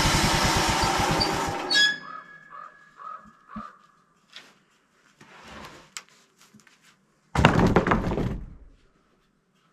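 A small engine running, shut off about two seconds in, followed by faint clicks and brief squeaks. Near the end comes a loud clattering thump lasting about a second.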